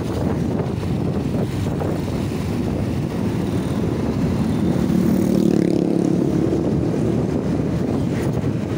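Wind buffeting the microphone of a moving motorcycle, over a low engine and road rumble. A steadier engine hum grows louder about halfway through, then fades.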